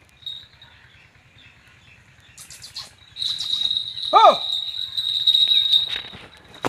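Falconry bells on a sparrowhawk jingling as it flaps across and flies to the fist: a few short shakes, then a steady high ringing jingle for about three seconds. A single short rising-and-falling call sounds in the middle, and a sharp knock comes near the end.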